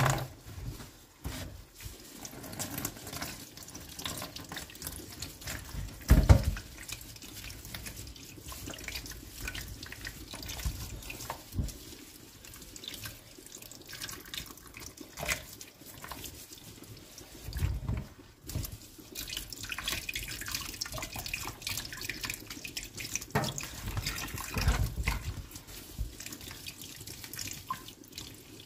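Hands swishing and rinsing fresh herbs and green onions in a bowl of water in a kitchen sink: irregular splashing and dripping, with a louder thump about six seconds in.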